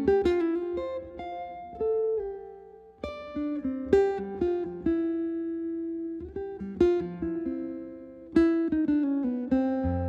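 Guitar played alone, plucked chords and single-note lines ringing out and decaying, with the phrase fading near 3 s and again near 8 s before new chords are struck.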